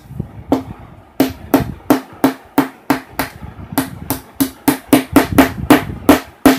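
Small hammer tapping a press-on metal trouser hook into a fabric waistband on a wooden table: a run of about eighteen sharp blows, roughly three a second, each with a short ring, fixing the hook's prongs in place.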